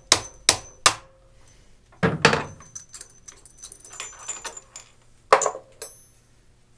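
Sharp metallic taps knocking a tight taper tool holder loose from its aluminium jig block: three quick knocks in the first second, a louder ringing knock about two seconds in followed by a rattle of metal parts, and one last knock past five seconds.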